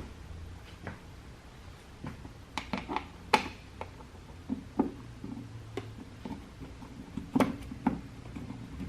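Scattered light clicks and taps, irregular and spaced from under a second to a second or more apart, as a plastic light switch is worked into its wall box with a hand screwdriver.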